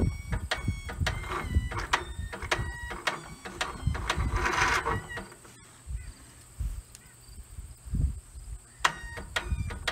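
Troy-Bilt riding mower's electric starter cranking the engine in short tries, with clicks between them; the engine does not fire.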